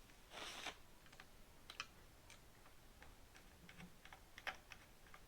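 Faint, scattered clicks and light taps of small parts being handled, with a brief rustle or scrape about half a second in.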